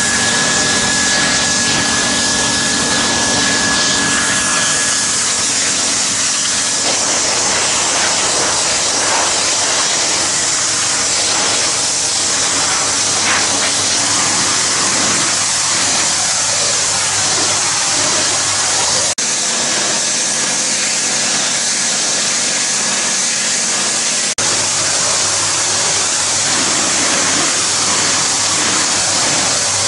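Hot-water pressure washer jetting a concrete floor: a loud, steady hiss of the spray over the machine's steady hum, broken twice by very short drops.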